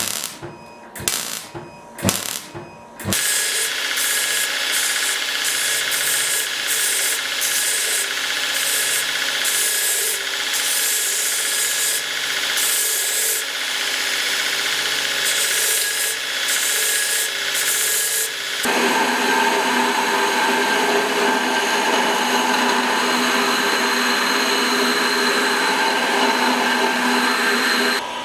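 A handheld electric power tool running steadily, after a few sharp clicks. About two-thirds of the way through its sound changes abruptly to a higher, more even tone.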